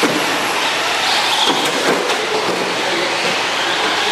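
Traxxas Rally 1/10-scale electric RC car running on a dirt track. A drivetrain whine rises and falls with the throttle over a steady hiss of tyres on dirt.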